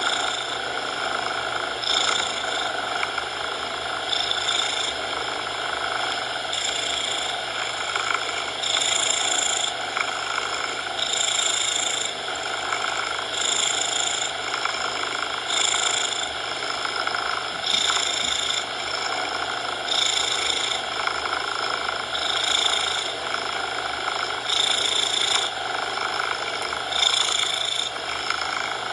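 A cat purring in a steady rhythm, swelling about every two seconds with each breath, over a constant bed of synthetic coloured noise.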